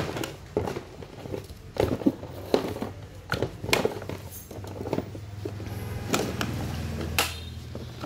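Handling noise from unboxing: scattered clicks, knocks and rustles of a robot vacuum's plastic charging dock and its power cord being moved around in a cardboard box. A low steady hum comes in about halfway through.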